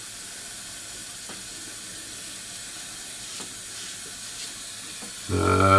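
Steady hiss of a bathroom tap running, with faint scraping strokes of a Gillette Labs five-blade razor cutting through lathered stubble.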